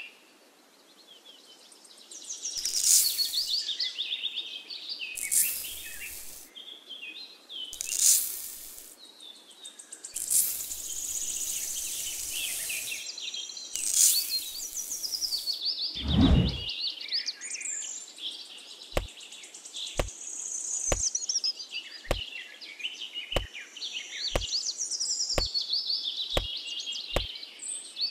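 Birdsong with chirps throughout. Over it come several bursts of hissing as fine sand pours from a small metal cup, then a thump about halfway through. Near the end there is a regular series of sharp clicks, about one a second.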